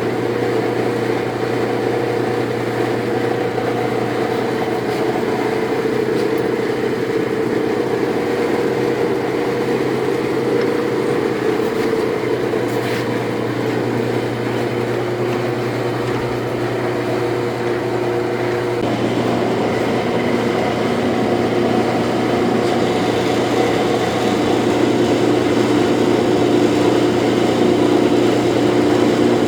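Lodge & Shipley 18 heavy-duty selective-head engine lathe running under power, a steady geared-head hum and whine. Its pitch shifts to a different set of tones about two-thirds of the way through, and it grows slightly louder near the end.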